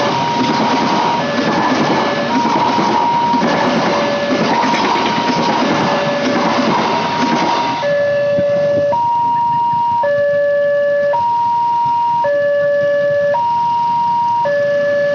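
Railroad crossing warning siren sounding a two-tone alarm, switching between a higher and a lower tone each held about a second. The noise of a passing train covers it for the first half and ends about halfway through, leaving the siren clear.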